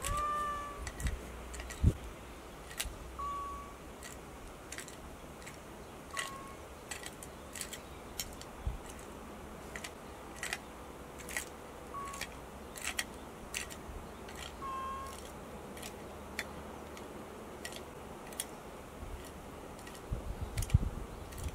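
A camera shutter clicking again and again at irregular intervals, about once a second, over quiet outdoor ambience, with a few short high chirps now and then.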